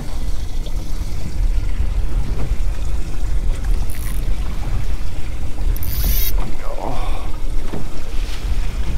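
A small boat's outboard motor running at slow trolling speed, a steady low rumble mixed with water noise against the hull. A short hiss comes about six seconds in.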